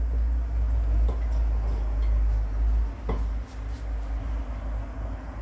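Pot of soup boiling on a gas stove with a steady low rumble, while a metal spoon stirs it and clinks against the pot about a second in and again about three seconds in.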